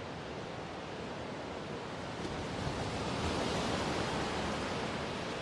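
Sea waves rushing, a steady noise that swells slightly around the middle.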